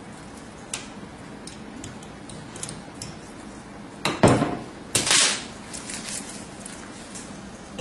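Light metallic clicks and taps at a compound bow's cam as the draw-length screw is refitted into a new hole. Then come two loud knocks, about four and five seconds in, as the bow is picked up and moved.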